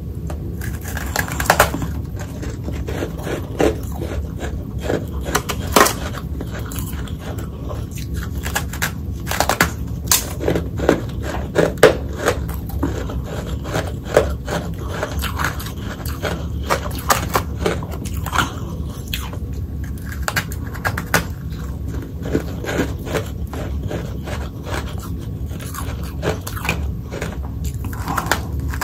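Someone biting and chewing hard freezer frost: a run of crisp, irregular crunches and crackles, the loudest bites about 6 and 12 seconds in.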